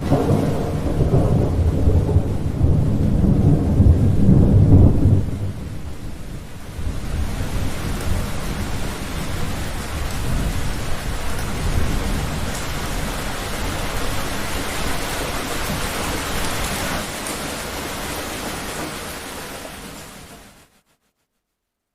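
A thunderclap starts suddenly and rumbles for about five seconds over steady rain. The rain carries on alone and fades out about a second before the end.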